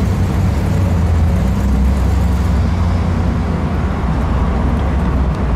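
1949 Cadillac Series 62 convertible's 331 cubic-inch V8 running quietly as the car drives slowly with the top down, heard as a steady low rumble of engine and road.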